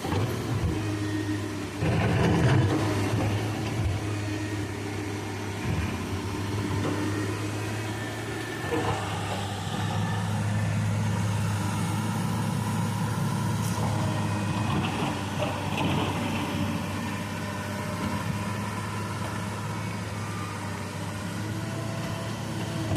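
Excavator's diesel engine running steadily under work, with a low hum that swells a little louder a couple of times.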